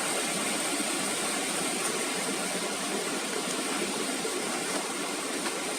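Steady rush of a waterfall, an even noise of falling water.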